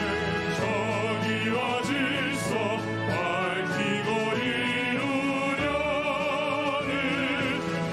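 Male vocal ensemble singing in an operatic, classical crossover style, voices wavering with vibrato over sustained orchestral accompaniment.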